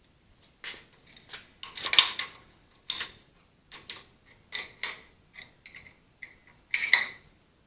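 Metal tools being handled and set down, giving an irregular run of clinks and clatters, some with a brief ring. The loudest come about two seconds in and near the end.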